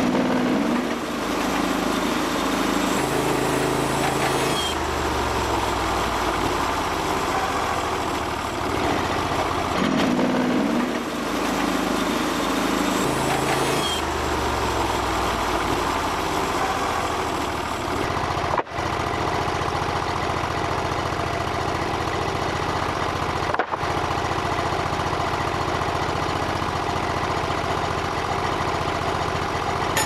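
Norwood portable bandsaw mill's engine running continuously. Its tone shifts in two stretches in the first half, then it runs steadily, with two instant dropouts in the second half.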